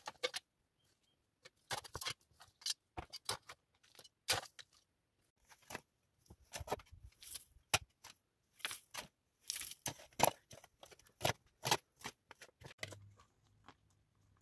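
Small hand trowel digging and scraping into dry, stony dirt, giving a run of short, irregular scraping strokes, one or two a second.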